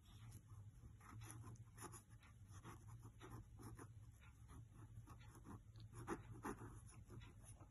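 Faint scratching of a small paintbrush stroking watercolour paint onto cardboard, in short irregular strokes.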